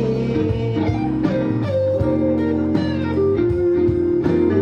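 A live band playing an instrumental passage of a pop ballad, with guitar over sustained bass and chords. The melody moves in held single notes that change about once a second.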